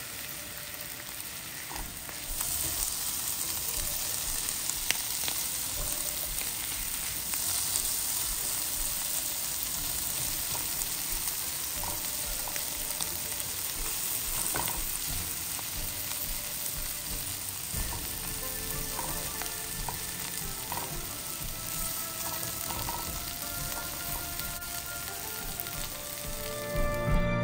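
Vegetables sizzling in a nonstick frying pan as they are stirred, with occasional clicks of the spatula against the pan. The sizzle gets louder about two seconds in.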